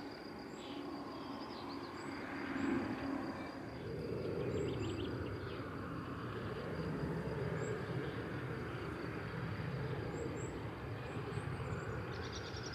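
Open-air farmland ambience: a steady rushing background noise with scattered faint bird chirps and a steady high insect trill, with a burst of rapid chirping near the end.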